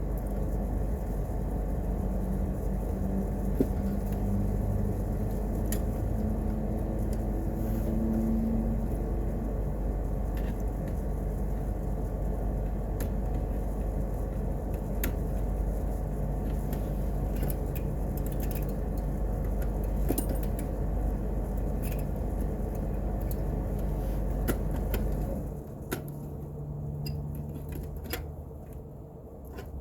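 Steady low mechanical hum with scattered light clicks and knocks; the hum cuts off suddenly about 25 seconds in, leaving quieter clicking.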